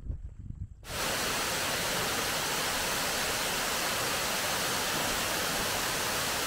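Rushing river water: a steady, even rush that cuts in suddenly about a second in and holds at a constant level.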